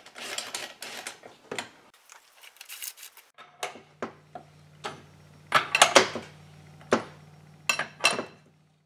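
Hand tools and case screws clinking on a chainsaw crankcase as the case halves are screwed together. A scratchy rattling in the first two seconds gives way to scattered sharp metallic clinks from the wrench, loudest around six seconds in, over a faint low hum.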